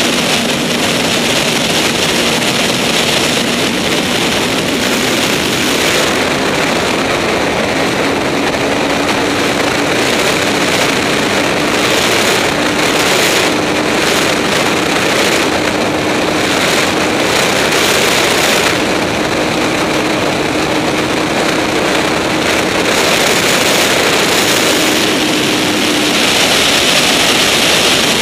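Wind rushing over the microphone of a Honda CBR954RR sportbike at high highway speed, with the 954 cc inline-four engine's note a thin steady tone under it, rising slowly in pitch as the bike gains speed.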